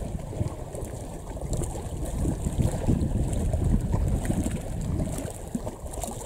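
Wind buffeting the microphone: a gusty low rumble that rises and falls.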